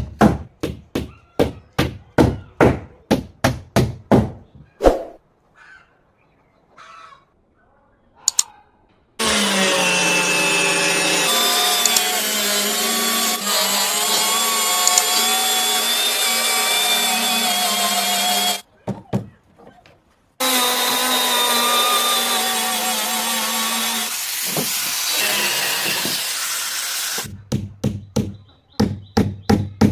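Rapid knocking strikes, about three a second. A pause follows, then an electric power tool runs steadily for about nine seconds at an even pitch, stops briefly, and runs again for about seven seconds. The knocking resumes near the end.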